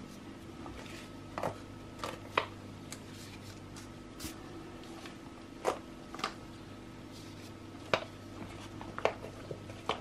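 Scattered light taps and soft rustles, roughly one a second, as solid lotion bars are pushed out of a flexible silicone mould and set down on parchment paper, over a steady faint hum.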